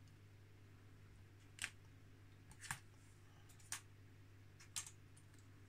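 Light clicks of plastic model-kit parts and sprue being handled and set down, four sharp ones about a second apart, over a low steady hum.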